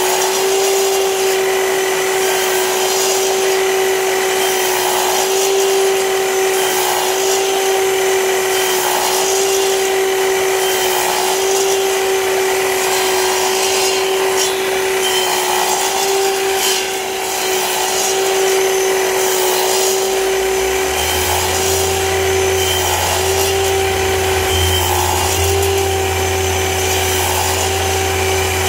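Festool Kapex KS 120 sliding miter saw running at full speed with a steady whine. Its blade makes a series of shallow cuts into a wooden workpiece about every two seconds to clear a housing groove. A low hum joins about two-thirds of the way through.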